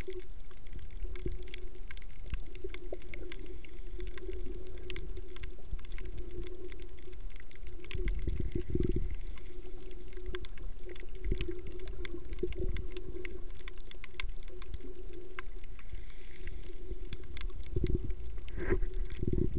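Underwater sound in shallow reef water: a steady wash of water noise over a low hum, scattered with many faint crackling clicks. There are heavier low surges of water movement about eight and eighteen seconds in.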